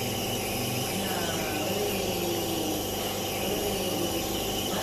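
Steady mechanical hum with several constant tones.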